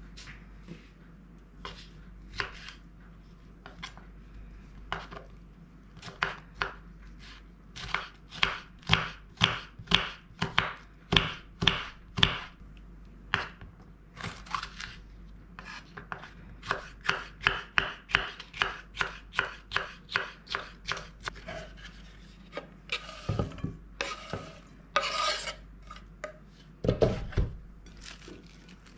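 Kitchen knife slicing a green bell pepper into strips on a wooden cutting board. It starts with a few scattered cuts, then runs of quick, even chops at about three a second. Near the end there is a short scrape and a few dull knocks.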